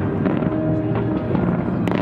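Fireworks going off, with scattered bangs and crackles from bursting shells and a sharper bang near the end, over music playing.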